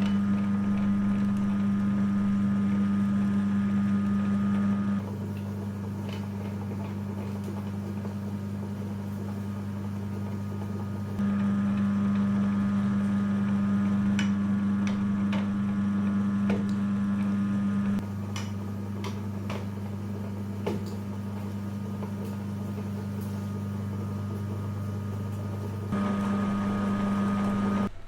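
Electric meat grinder running with a steady motor hum that steps louder and quieter in stretches, with scattered short clicks and crackles as the coloured mud is pushed through.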